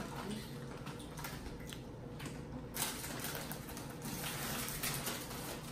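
Snack-chip bags rustling and crinkling, with chips being crunched: soft, irregular crackles over a low steady hum.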